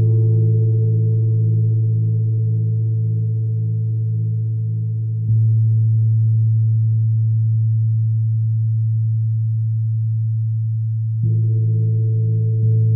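Large gong struck softly with a padded fleece mallet, three strokes: one about five seconds in and two close together near the end. Each stroke lifts a deep, sustained hum that rings on without dying away between strokes, its overtones wavering slowly.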